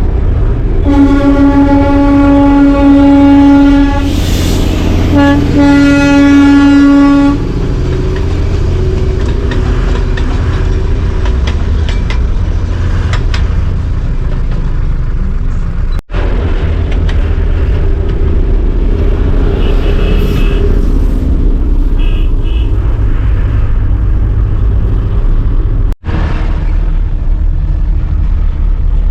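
Darjeeling toy train's horn sounding two long blasts, the first about three seconds and the second about two, over the steady low running of a car engine and road noise.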